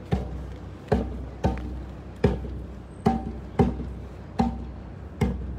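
A hand drum struck in a slow, steady beat, a little more than one stroke a second, each stroke ringing briefly with a low tone.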